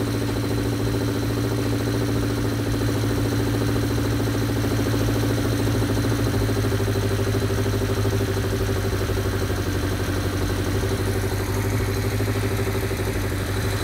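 Vintage Honda inline-four motorcycle engine running steadily at a fast idle while its carburettors are vacuum-synchronized, with one carb's sync screw being turned.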